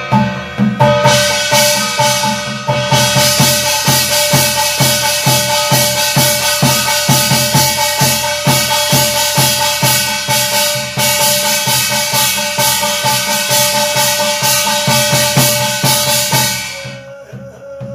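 Korean barrel drum (buk) beaten in a fast, even rhythm of about four strokes a second, with a small brass gong struck along with it and ringing over the beat: the accompaniment to a shaman's seated sutra chanting (dokgyeong). The playing starts about a second in and stops near the end.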